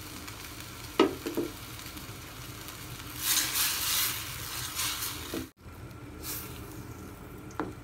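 Mushrooms and chicken stock sizzling in a glass saucepan on a gas burner while a wooden spoon stirs them, with a louder stretch of hiss in the middle. There are sharp knocks about a second in and again near the end, and the sound breaks off abruptly a little past halfway.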